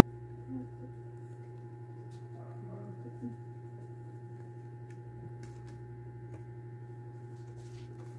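A steady low electrical hum, with faint soft handling sounds as hands press and fold a spring-roll wrapper on a plate.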